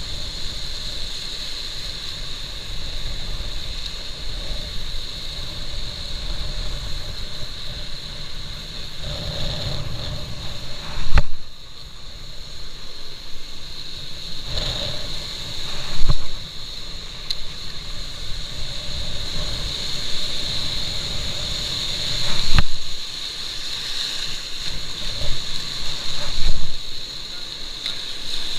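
Sea water sloshing and wind buffeting the microphone, with a few louder surges and two sharp clicks, one about eleven seconds in and one about twenty-two seconds in.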